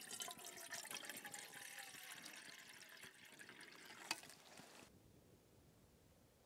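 Water poured from a soft plastic water bag into an aluminium camping pot: a steady splashing trickle. There is a sharp click about four seconds in, and the pouring cuts off just under a second later, leaving only a faint background.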